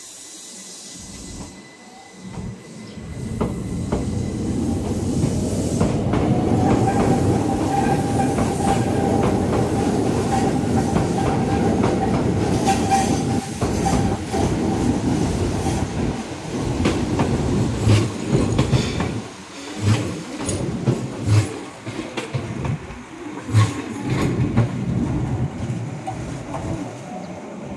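Keihan electric trains running through a station: a dense rumble builds up, with a steady high tone held above it for several seconds as a train passes close. Then come irregular heavy thumps of wheels over rail joints and points as a train rolls in.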